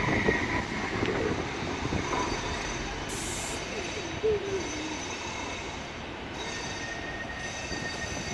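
West Midlands Metro tram (CAF Urbos 3) running past on its street track and pulling away, its noise fading over the first few seconds and leaving a steady wash of street noise.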